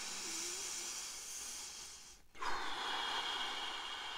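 A man taking slow, deep paced breaths for a breathing exercise: one long breath, a brief break about two seconds in, then a second long breath with a faint whistle in it.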